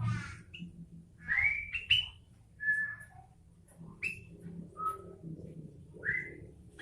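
Sooty-headed bulbul singing short, clear whistled notes about a second apart, several of them quick rising slurs.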